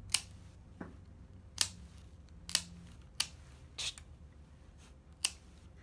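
Plier-style dog nail clippers snipping through a dog's black toenails: about half a dozen sharp clicks, irregularly spaced roughly a second apart.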